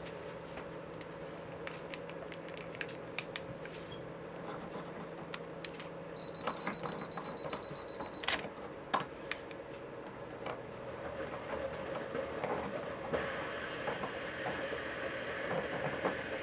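Scattered small clicks and taps of hands and tools at work on a guitar, over a steady background hum. A thin high tone sounds for about two seconds in the middle and ends in a sharp click, and the knocks come more often in the second half.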